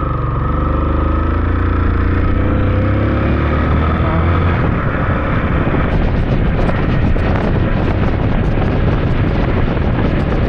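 Motorcycle being ridden: its engine note falls over the first few seconds, then wind rushing over the microphone takes over.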